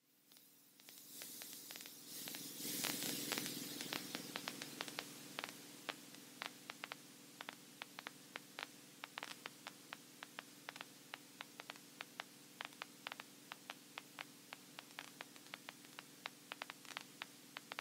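Faint crackling static in the aircraft's headset audio: sharp, irregular clicks a few times a second over a steady low hum, with a burst of hiss in the first few seconds. The pilot hears it as a scratch in his ear and isn't sure whether the avionics cause it.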